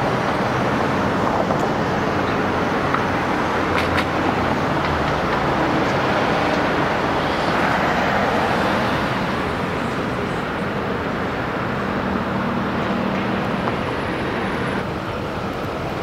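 Steady road traffic noise from passing vehicles, with a low engine hum and a swell about halfway through as a vehicle goes by. There is one sharp click about four seconds in.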